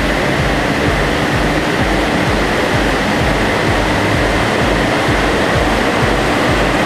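Land Rover Defender TD4 turbodiesel running under load on a rolling-road dyno, heard as a loud, steady rushing din with a rough pulsing low end and no clear change in pitch.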